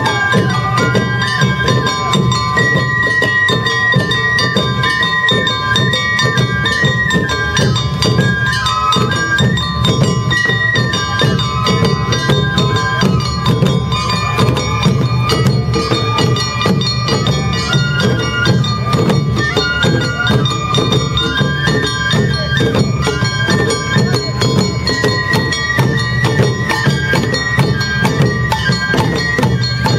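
Awa Odori festival band playing: bamboo shinobue flutes carry a high, stepping melody over steady beating on large barrel-shaped taiko drums.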